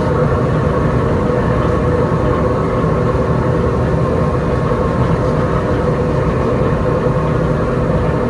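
Factory machinery running steadily: a dense, even noise with a constant hum through it.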